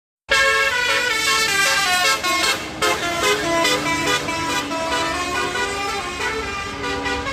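Bus telolet basuri horn playing a fast melody of stepping notes. It starts suddenly about a third of a second in, over a low rumble.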